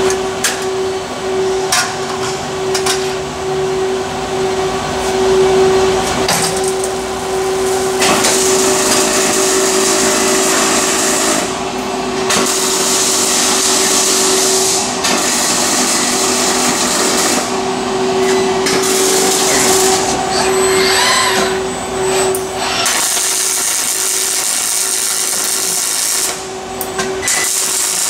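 Robotic MIG welding arc crackling and hissing in stretches of a few seconds, broken by short pauses, over a steady electrical hum from the welding cell.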